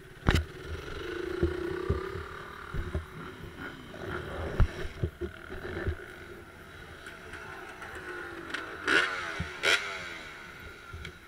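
Dirt bike engine running at low speed, blipped twice near the end with quick rising revs. Scattered sharp knocks sound throughout.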